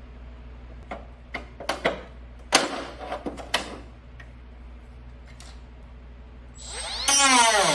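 A run of sharp clicks and knocks from parts of a rear-projection TV being handled and pried during disassembly. Near the end a power tool's motor starts and runs loudly, its pitch wavering as it works under load.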